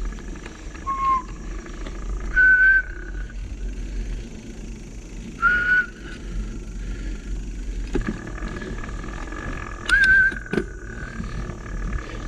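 Mountain bike brakes squealing in short high squeals, four times, over a steady low rumble of riding along a dirt trail, with a couple of sharp knocks in the second half.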